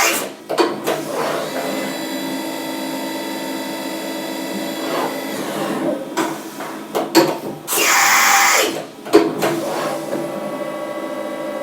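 CNC milling machine running, a steady whine of spindle and axis motors made of several held tones, with a few short knocks and a loud rushing hiss about a second long roughly eight seconds in.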